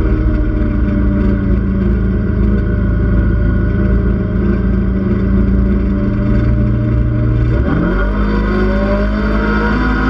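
Side-by-side UTV engine running at a steady pace. About three-quarters of the way through, its pitch drops sharply and then climbs again as the revs come back up, with a low rumble of wind and terrain through the open cage.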